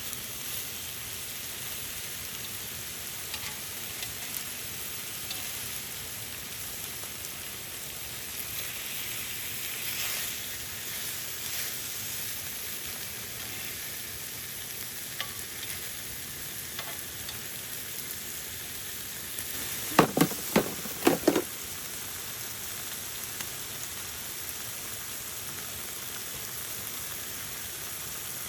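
Food sizzling and frying in a pan, a steady hiss with small ticks and pops. About twenty seconds in comes a quick run of four or five sharp knocks.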